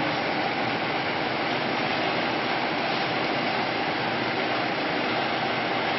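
Steady, even rushing background noise of a factory warehouse, with nothing standing out.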